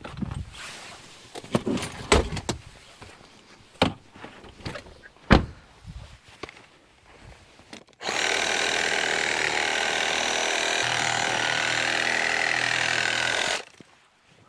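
A few scattered knocks and clunks, then about eight seconds in a reciprocating saw runs at a steady pitch for five or six seconds, cutting through a log, and stops suddenly.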